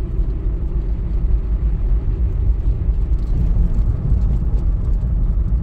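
Car driving along a city street: a steady low rumble of road and engine noise.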